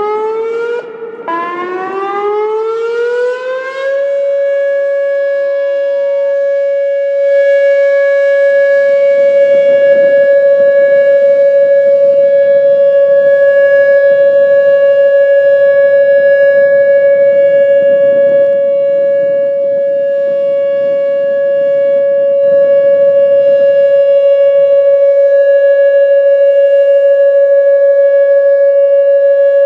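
Whelen WPS-2805 electronic siren sweeping up in pitch twice, then holding one loud steady tone: the monotone alert signal used to warn of a chemical release.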